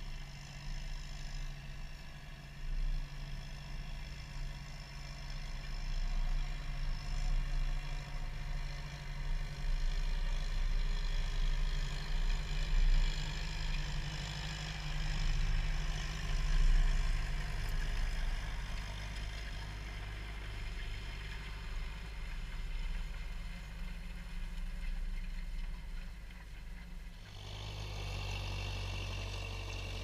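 John Deere 6120 tractor's diesel engine running steadily while pulling a three-furrow plough. It grows louder as the tractor passes close about halfway through, and near the end the sound changes abruptly and stays close and steady.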